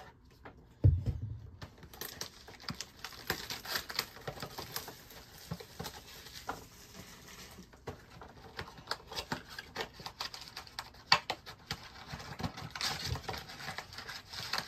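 Plastic wrap crinkling and tearing, with cardboard rustling, as a trading-card blaster box is unwrapped and opened. There is a single thump about a second in.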